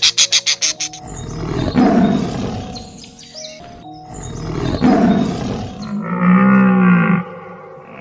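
A large animal roars twice, each roar long and rough, about three seconds apart. Near the end, a different animal gives one drawn-out, pitched call. Rapid chirping pulses are heard at the very start.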